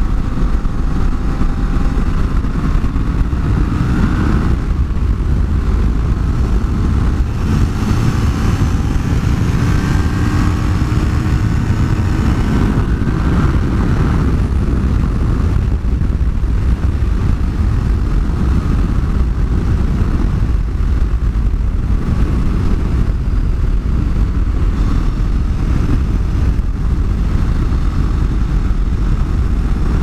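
Motorcycle ridden at speed: heavy wind noise on the microphone over the engine, whose pitch rises and falls a few times.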